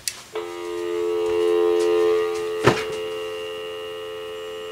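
Dial tone from a cordless phone just taken off hook: a steady tone that starts a moment in and holds, the usual North American dial tone. A sharp click sounds about two and a half seconds in.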